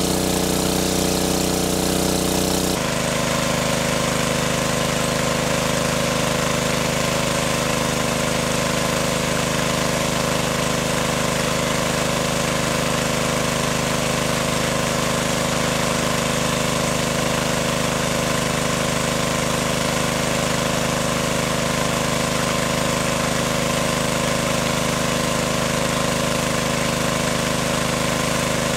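Small engine-driven water pump running steadily, drawing water out of a lake. About three seconds in its note shifts abruptly, then stays even.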